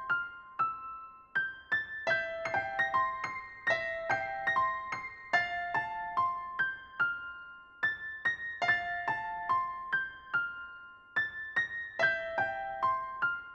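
Soft background music: a gentle electric piano melody of short, ringing notes, the same phrase coming round again every few seconds.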